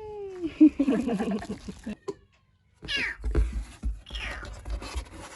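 Kitten meowing several times, each call falling in pitch, with low rumbling from the kitten being handled or moving about.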